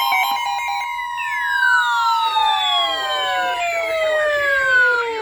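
Siren-like electronic alert tones: a steady tone near 1 kHz at the start, then several overlapping tones all sliding slowly downward in pitch.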